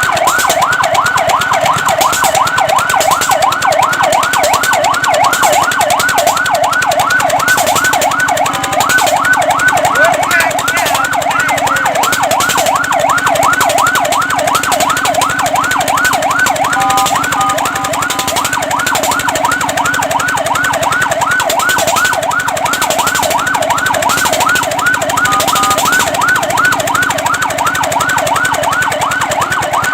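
Fire truck siren in a fast yelp, its pitch sweeping up and down several times a second without a break. Three times it switches briefly to a steady tone.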